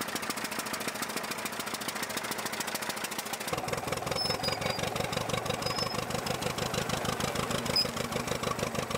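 Moline Universal tractor engines running as they pull plows, with a rapid, even firing beat. About three and a half seconds in, the sound cuts to a louder, deeper-running engine.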